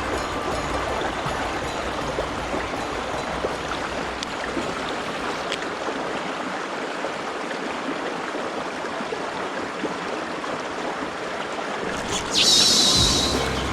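Mountain stream water rushing steadily, with a sharp, bright hiss lasting about a second near the end.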